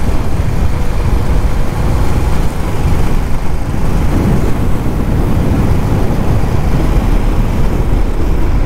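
Motorcycle riding at highway speed: wind buffeting the microphone over a steady rumble of engine and road noise.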